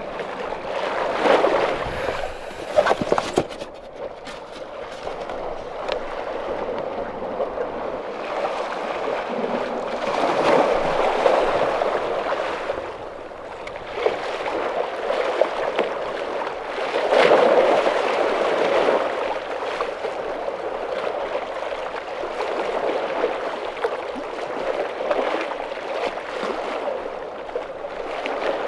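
Small waves lapping and sloshing against the shoreline rocks, swelling and ebbing every few seconds. A few sharp clicks sound a couple of seconds in.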